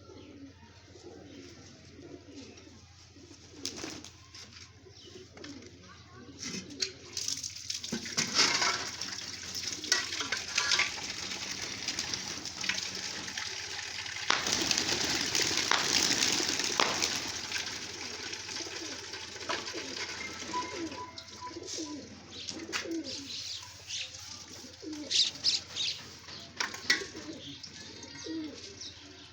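Pigeons cooing repeatedly, low warbling calls. Partway through, a louder stretch of rustling noise runs for several seconds, with a few sharp clicks here and there.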